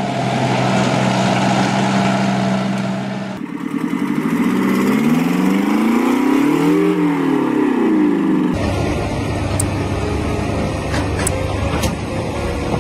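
Heavy vehicle engines across three short clips. First a tracked armoured vehicle's engine runs steadily. Then a loaded log truck's engine revs up and back down while its front wheels lift off the ground, and last a truck's engine runs low with a few sharp clicks.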